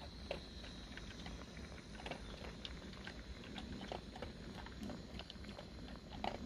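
Chicken and vegetable stir-fry sizzling quietly in a wok on a portable gas cartridge stove, with many small scattered crackles over a steady faint hiss.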